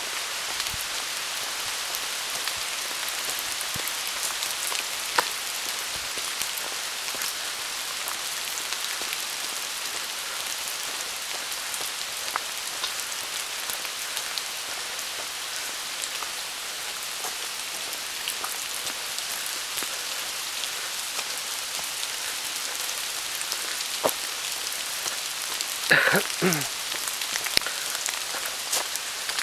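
Steady rain falling on rainforest foliage, with single drops striking close by. Near the end there is a brief louder sound that falls in pitch.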